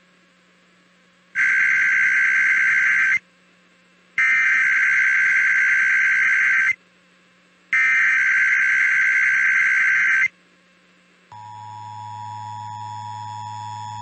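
Emergency Alert System SAME header: three screechy data bursts, each about two seconds long with a second of silence between, followed about eleven seconds in by the steady two-tone EAS attention signal (853 and 960 Hz). Together they announce an incoming alert, here an IPAWS required weekly test.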